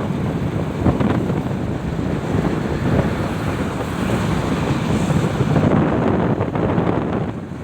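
Strong wind buffeting the microphone, a steady low rumbling rush, with sea waves washing in underneath.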